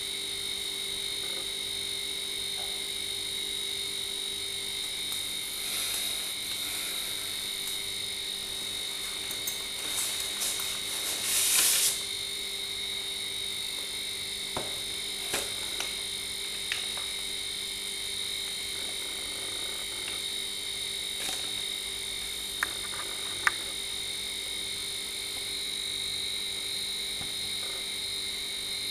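Steady chorus of frogs calling, with a faint regular pulsing under it. About ten to twelve seconds in there is a brief louder rustle of handling, and a few sharp clicks follow later.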